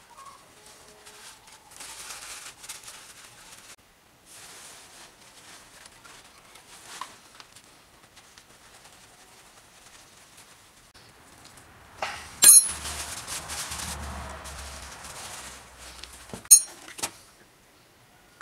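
Hand tools and metal parts being handled: soft rustling and scraping, a sharp metallic clink about twelve seconds in followed by a few seconds of scraping, then two more sharp clinks near the end.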